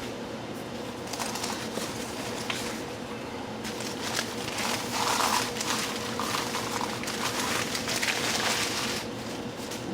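Rustling and crinkling of packing material being pulled from a shipping box. It runs from about a second in until near the end, over a faint steady hum.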